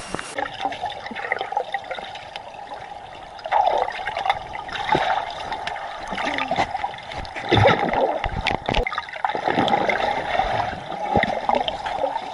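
Water of a waterfall running, rising and falling unevenly, louder from about three and a half seconds in.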